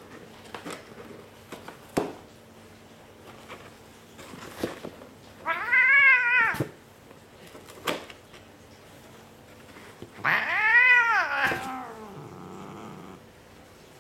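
Bengal cat meowing twice: two long drawn-out calls, each rising and then falling in pitch, about four seconds apart. A few short sharp taps come in between.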